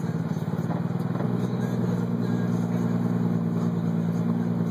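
Heavy truck's diesel engine running steadily under way; about a second in its note changes and settles into a smoother, even drone.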